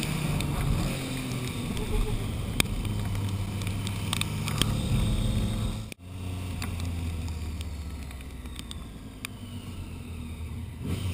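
Triumph Street Triple R's three-cylinder engine running at a steady cruise, heard from the bike itself along with wind and wet-road tyre hiss and a few sharp clicks. The sound cuts off abruptly about six seconds in and resumes with the engine running lower and a little quieter.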